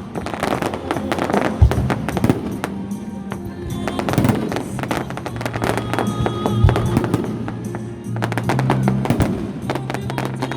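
Fireworks bursting and crackling in rapid clusters of sharp bangs, over music with steady held bass notes.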